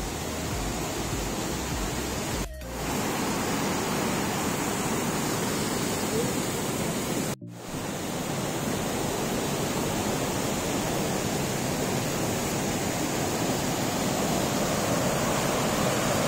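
Steady rushing noise of a waterfall, briefly cutting out twice, about two and a half and seven and a half seconds in.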